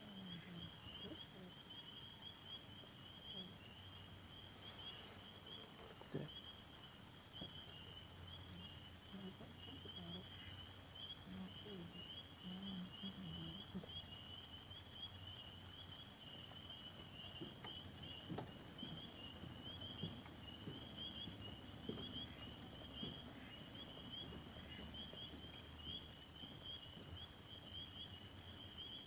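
Faint, steady high-pitched trilling of a distant animal chorus across the lake, with a few soft knocks on the boat.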